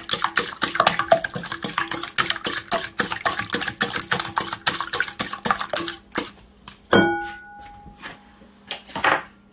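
Wire whisk beating eggs in a ceramic bowl: fast, rhythmic clicking of the wires against the bowl, which stops about six seconds in. About a second later comes a single ringing clink.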